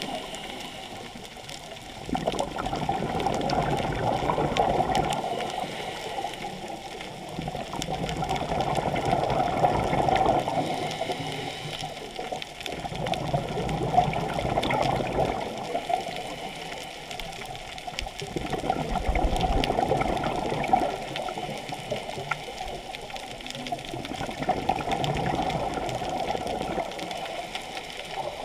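Water rushing past a camera moving underwater, heard muffled through its waterproof housing, swelling and fading about every five to six seconds.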